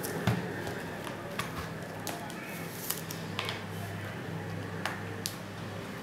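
Scattered faint clicks and taps from handling a white MacBook laptop while starting it up, over a steady low hum.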